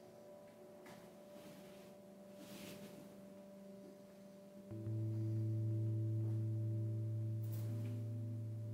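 Singing bowl ringing. Faint lingering tones at first, then about halfway through a deep, steady ring starts suddenly and holds, fading slowly.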